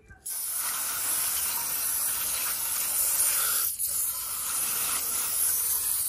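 Pressure washer spraying water onto a plastic dashboard vent assembly: a loud, steady hiss of spray that starts a moment in and breaks off once, briefly, a little past the middle.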